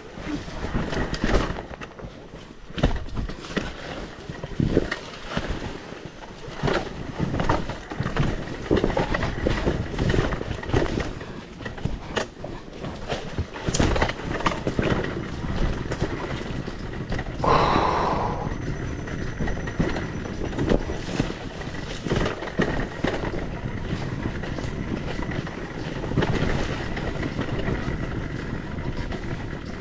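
Off-road enduro ride over rough ground: irregular knocks and rattles over a continuous rumbling noise, with one short louder sound about eighteen seconds in.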